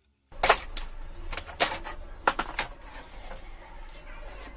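Sharp clicks and light knocks of plastic and metal console parts being handled during a PlayStation 4 teardown, about eight at uneven intervals. They start suddenly just after the beginning, and the first one is the loudest.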